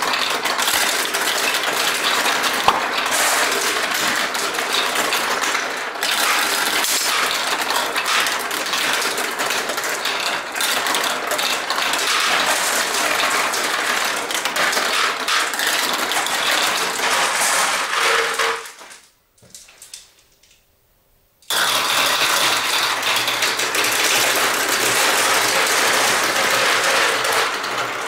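Many marbles rolling and clattering down a plastic Duplo-block marble run: a dense, continuous rattle of small clicks. It breaks off for about three seconds roughly two-thirds of the way through, then starts again.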